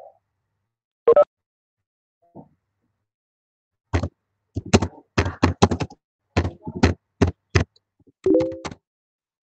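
Typing on a computer keyboard close to the microphone: a single knock about a second in, then a quick run of about a dozen sharp keystrokes over some three and a half seconds, ending with a brief pitched sound.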